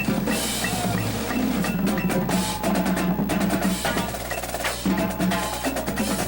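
Indoor percussion ensemble playing: rapid snare drum strokes and rolls mixed with pitched mallet-keyboard notes, all in a quick, dense rhythm.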